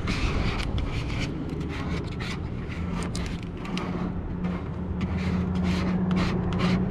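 Plastic credit card squeegeed in quick, repeated strokes over a vinyl decal on a car's body, a short rasping scrape with each stroke. Beneath it runs a low rumble, joined about halfway through by a steady low hum.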